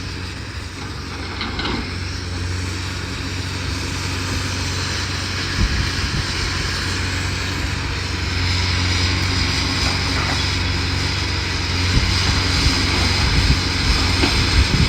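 Heavy demolition machine's diesel engine running steadily, growing louder about halfway through, with a few short knocks.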